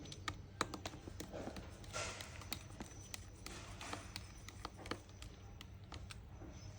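Irregular small clicks and taps of a precision screwdriver working at the tiny screws on an iPad's LCD connector cover.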